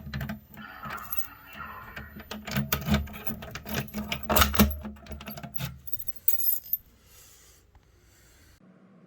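Metallic clinking and rattling: a run of quick clicks and jingles over a low hum, dying away about six seconds in.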